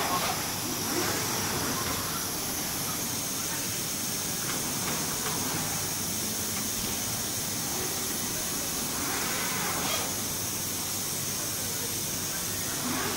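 Busy exhibition-hall background: a steady hiss with faint, distant crowd voices.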